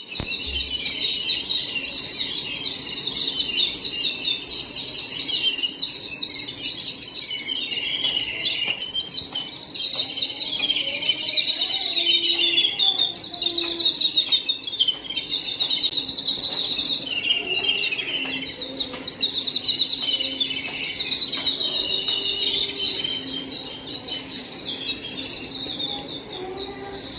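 A flock of birds chirping and chattering all at once: a dense, unbroken din of overlapping high calls, which the uploader takes for birds fighting.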